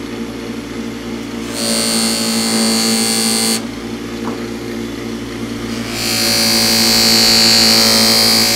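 Belt-driven cloth buffing wheel running with a steady motor hum. Twice, the steel chip breaker is pressed against the spinning wheel, giving a loud high-pitched hiss for about two seconds and then again for a longer stretch near the end, as its edge is polished toward a mirror finish.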